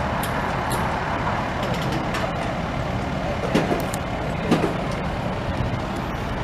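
Steady motor-vehicle rumble of a road scene, with a few brief louder sounds about three and a half and four and a half seconds in.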